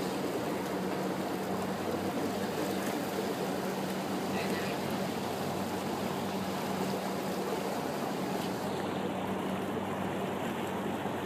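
Bumboat's engine running with a steady low hum, under an even wash of water noise as the boat moves across the bay.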